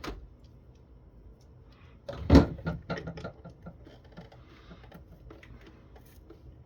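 Tools and the phone's plastic housing being handled on a workbench: one loud knock about two seconds in, followed by light clicks and scraping as a screwdriver works at the speaker's screws.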